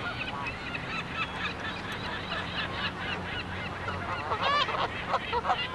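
A flock of Canada geese honking, many short calls overlapping, getting louder and busier a little past halfway.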